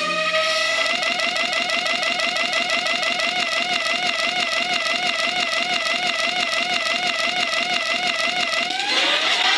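Electronic siren sound effect from a handheld sound-effects blaster: a tone that glides up, then warbles rapidly up and down. Near the end it switches to a slower wailing siren over a loud rushing noise.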